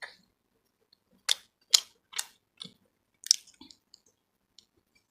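A person chewing chicken lasagna close to the microphone: a run of short, sharp mouth sounds, four loud ones between about one and three and a half seconds in, with softer ones around them.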